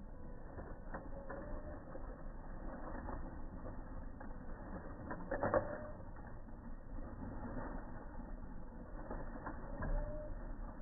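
Saltwater crocodile splashing and churning the water after lunging at bait, with one loud splash about halfway through and a smaller one near the end.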